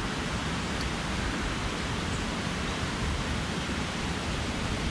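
Steady, even rushing outdoor ambience in woodland, with no distinct events.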